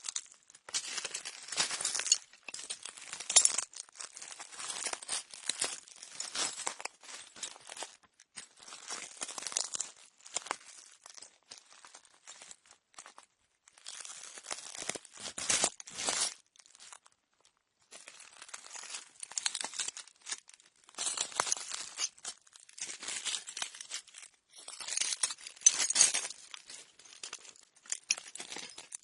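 Slow footsteps crunching on broken glass, each step a cluster of crackling and clinking shards, with a pause of about a second a little past halfway.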